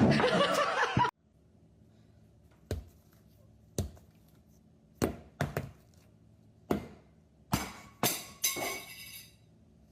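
A loud rushing noise that cuts off about a second in, then a series of irregular sharp knocks, some ringing briefly, over a faint low hum.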